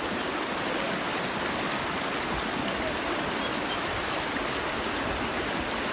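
Fast river rapids rushing steadily, the water churning in white water over rocks.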